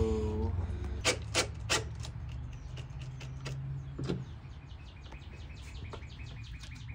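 Wiring-harness wires and plastic connectors being handled, giving three sharp clicks in quick succession a second or so in and another around four seconds in, over a steady low hum. Near the end comes a faint quick run of ticks.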